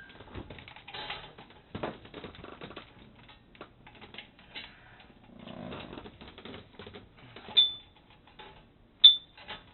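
Hands working a photocell wire loose inside a pinsetter's kickback mount: irregular light clicks, rattles and rustling of wire and plastic parts. Two sharp metallic clinks near the end are the loudest sounds.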